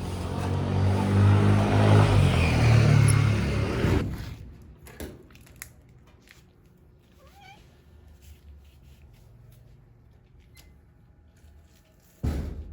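A loud rushing rumble for about four seconds, then quiet, with a house cat giving one short, wavering meow about seven seconds in.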